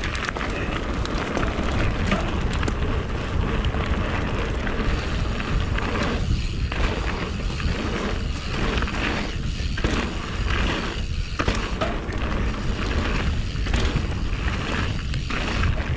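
Canyon Spectral AL 6.0 mountain bike rolling fast down a gravel trail: a steady rush of tyre noise over loose gravel mixed with wind on the microphone, heard from a handlebar-mounted camera.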